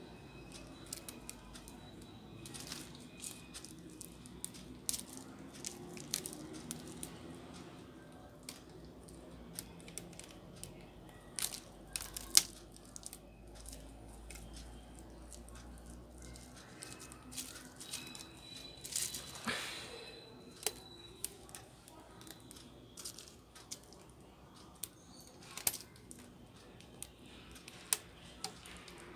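Rubber bands being stretched and let snap onto a phone's body, with scattered sharp snaps and light rustling of handling. The bands clamp a newly glued replacement LCD while the adhesive sets.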